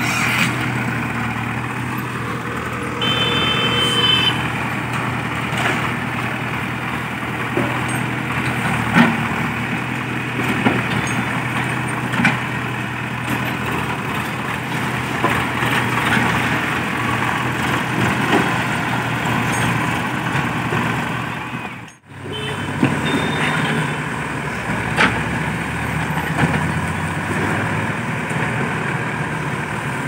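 JCB 3DX backhoe loader's diesel engine running steadily while the backhoe digs and loads, with occasional sharp knocks. The sound drops out for a moment about two-thirds of the way through.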